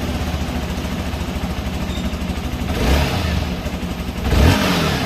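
Hero Xpulse 200 4V's single-cylinder 200 cc engine heard at the exhaust, idling steadily, then revved with two short throttle blips, about three seconds in and again near the end.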